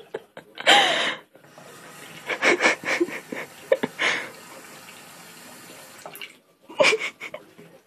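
Bathroom faucet running a thin stream of water into the sink basin, a steady hiss. Several short, louder sounds break in over it: one about a second in, a cluster around the middle, and one near the end.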